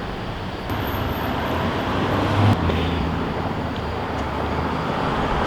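Road traffic noise, with a motor vehicle's engine humming steadily through the middle of it.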